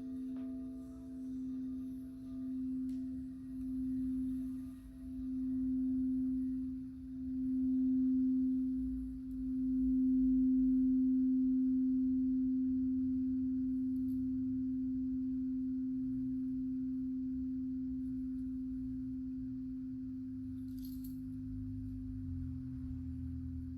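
Singing bowl sounding one pure, steady tone that swells in slow, widening pulses as it builds. It peaks about ten seconds in, then rings on and slowly fades.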